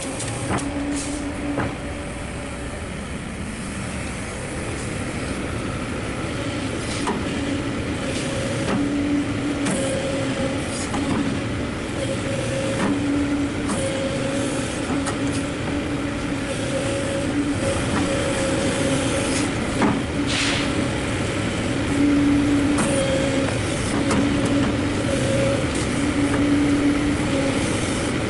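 Kobelco SK200 hydraulic excavator running, its diesel engine and hydraulics working steadily as the boom and bucket are moved. A hum swells in and out every few seconds as the controls are worked, with a few sharp knocks.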